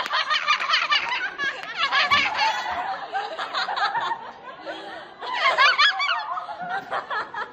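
Several people laughing and giggling in short, high-pitched bouts, loudest near the middle and again about two-thirds of the way through.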